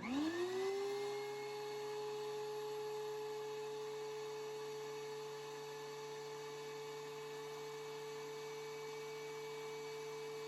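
DeWalt DW735 thickness planer switched on: its motor spins up within about a second to a steady high whine and keeps running at speed.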